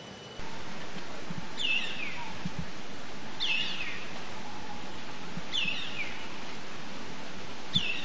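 Black baza calling: four short whistled calls, each falling in pitch, about two seconds apart, over steady background noise.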